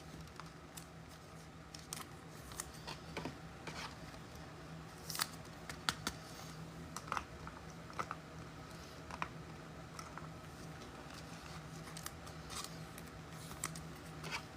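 Faint, scattered clicks and light scrapes of trading cards and foil packs being handled, over a low steady hum.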